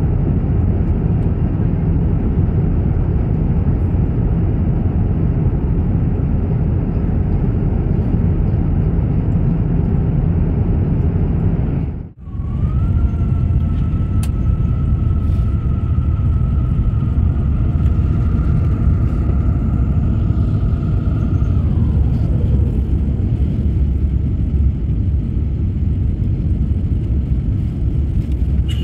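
Airbus A350-900 cabin noise in cruise: a steady, deep rush of airflow and Rolls-Royce Trent XWB engines heard from inside the cabin. The noise breaks off for an instant about twelve seconds in and then resumes. After that, a faint high whine holds steady for about nine seconds, then slides down in pitch and fades.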